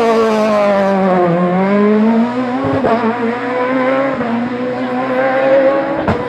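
Front-wheel-drive kit-car rally car's 1998 cc four-cylinder engine at high revs: the note dips briefly, climbs again and holds under load. A short sharp crack comes near the end.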